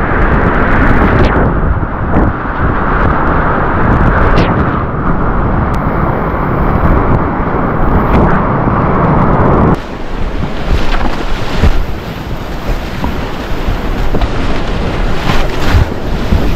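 Whitewater rapids rushing and splashing around a kayak, heard close up through a kayaker's action camera, with water and wind hitting the microphone and sharp splashes now and then. About ten seconds in the sound changes abruptly, becoming thinner and a little quieter.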